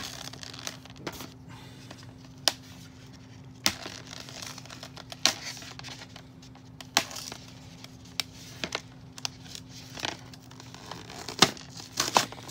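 Clear plastic blister packaging of doll hair accessories being handled and worked loose, crinkling and crackling, with scattered sharp clicks and snaps that are loudest near the end.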